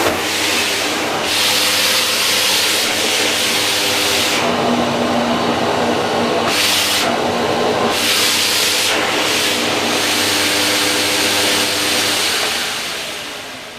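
Electrolux UltraFlex Green canister vacuum cleaner running with its hard-floor parquet nozzle. The motor hums steadily under an airy suction hiss that swells and fades every second or two as the nozzle is worked over the floor. Near the end the sound dies away as the motor is switched off and winds down.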